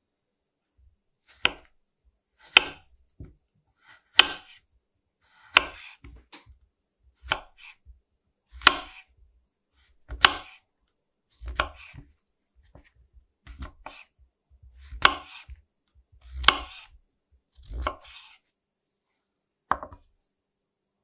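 Kitchen knife slicing whole white button mushrooms on a wooden cutting board: about a dozen single, crisp cuts roughly one and a half seconds apart, each ending in a knock of the blade on the board. Near the end, one lighter knock as a glass bowl is set down on the board.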